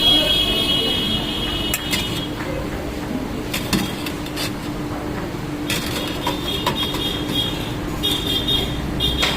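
Busy street noise with a steady low hum and high-pitched tones that come and go. One tone lasts about two seconds at the start, then three shorter ones follow in the last four seconds, along with a few sharp clicks.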